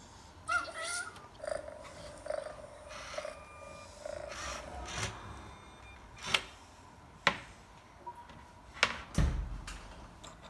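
Recorded cat sounds from the Lego Boost app for the Frankie robot cat: a short meow about half a second in, then a few seconds of pulsing purring. Four sharp knocks follow in the second half, the loudest sounds, the last a heavier thump.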